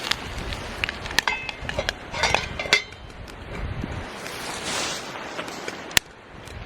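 Metal camp cookware and utensils clinking and rattling, with short ringing clinks about a second in and again around two and a half seconds, over a steady background hiss. A single sharp click near the end.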